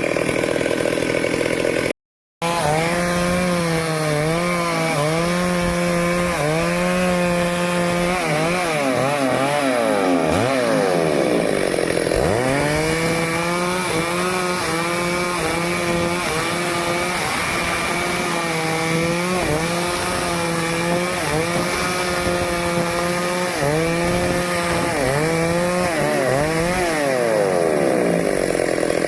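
Stihl two-stroke chainsaw cutting teak wood, its engine pitch dipping and recovering over and over as the chain bites under load. Twice the revs fall away and climb again. The sound cuts out for a moment about two seconds in.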